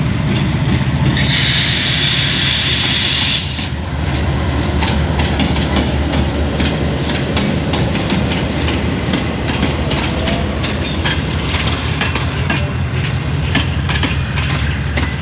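GE U20C (GEU-20) diesel-electric locomotive passing close, its diesel engine running with a steady low drone. A loud hiss comes about a second in and lasts about two seconds. After that the coaches' wheels keep up a rapid clickety-clack over the rail joints as the train rolls by.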